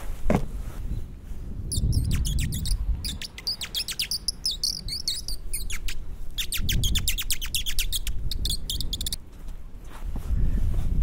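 Birds chirping in quick runs of sharp, high notes, starting about two seconds in and stopping about nine seconds in, over a low rumble of wind on the microphone that swells and fades.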